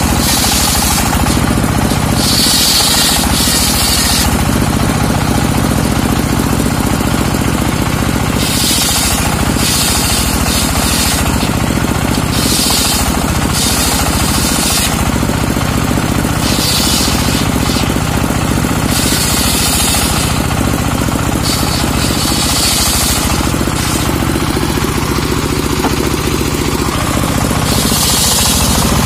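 Homemade circular sawmill's large blade cutting trembesi (rain tree) logs into boards, its driving motor running steadily, with a high hissing cut rising each time the blade goes through the wood, about eight passes of a second or two each.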